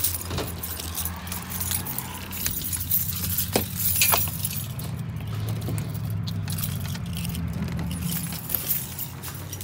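A bunch of keys jangling and clinking as someone walks down carpeted stairs, over a steady low hum, with two sharp clicks about three and a half and four seconds in.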